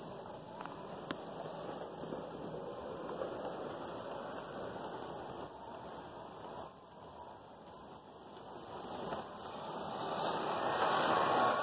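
Emmett Kelly Jr. Ringmaster toy train set running around its track loop, wheels rattling and clicking irregularly over the rails as the cars pass. Near the end it gets louder, with a wavering whine as the locomotive passes close.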